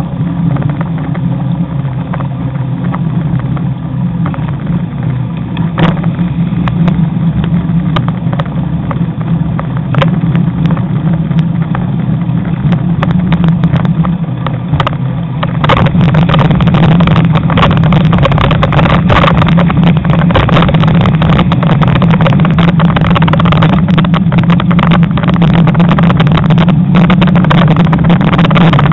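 Wind rushing and buffeting over a bike-mounted camera's microphone while cycling along a road, mixed with road and traffic noise and frequent rattling clicks from the mount. About halfway through the rushing becomes louder and harsher.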